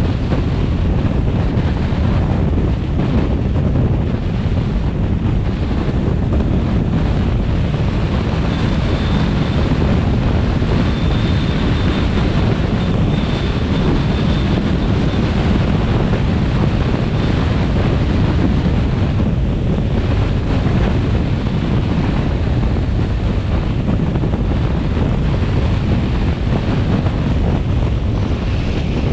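Wind rushing over the microphone of a camera on a moving vehicle: a loud, steady low rumble, with road noise mixed in.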